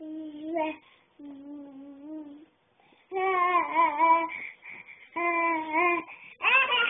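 Baby babbling in a string of drawn-out, wavering vocal sounds, five in all, the last and loudest one near the end.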